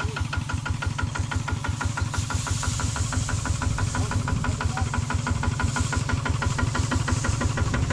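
Single-cylinder diesel engine of a two-wheel walking tractor idling steadily with a rapid, even chugging beat.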